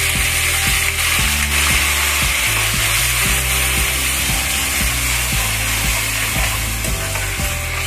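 Tomato puree sizzling as it hits hot oil with tempered mustard seeds, cumin and curry leaves in a stainless steel kadai. A steel spoon scrapes repeatedly against the pan as it is stirred.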